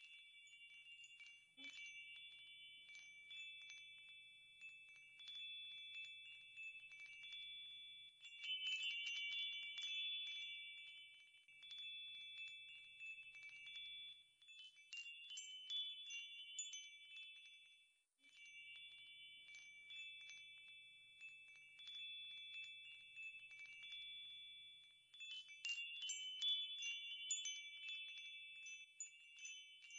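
Faint wind chimes ringing: several sustained high tones with many light strikes. The ringing thins out briefly a couple of times and is busiest about nine seconds in and near the end.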